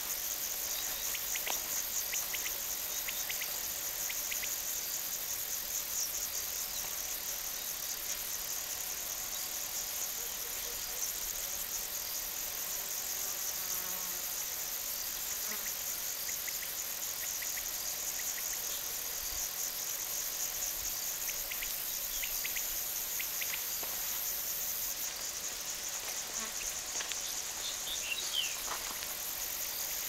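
A steady chorus of crickets chirping, high-pitched with a fast, even pulse. A few short, fainter chirps come in briefly near the start and again in the last third.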